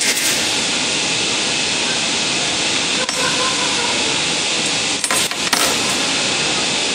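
Steady loud air hiss from the welding station, with a sharp click at the start, another about three seconds in, and a short clatter of thin galvanized sheet-metal strip being handled about five seconds in.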